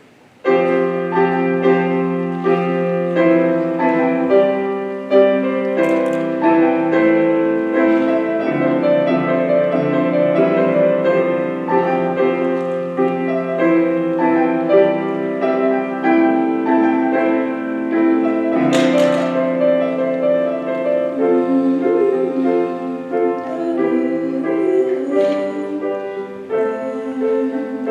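Instrumental interlude led by piano, over long held chords, with no singing. It starts about half a second in after a brief drop in level.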